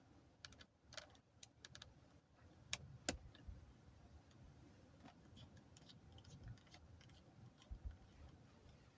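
Faint, scattered clicks and taps of small screws and a screwdriver being handled and set down while a laptop is taken apart. Two sharper clicks come close together about three seconds in.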